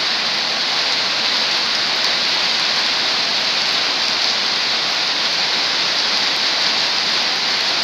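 Heavy rain falling steadily on a wet road, a dense, even hiss.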